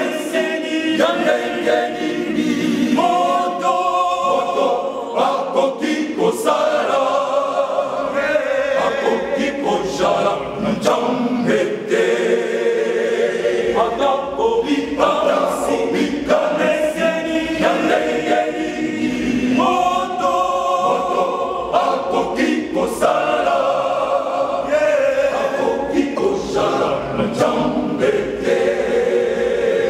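Male choir singing in several-part harmony, a cappella, with a conductor leading.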